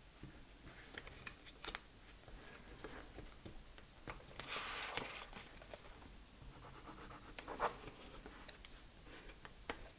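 Faint handling of cardstock on a cutting mat: scattered light taps and rustles as the paper is folded and pressed down, with a longer brushing swish about halfway through.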